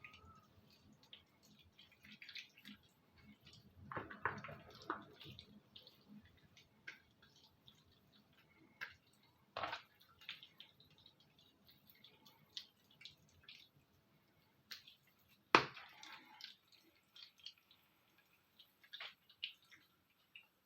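Hands rubbing seasoning into raw chicken thighs: faint, irregular wet squishing and smacking of skin and meat, with one sharper knock about three-quarters of the way through.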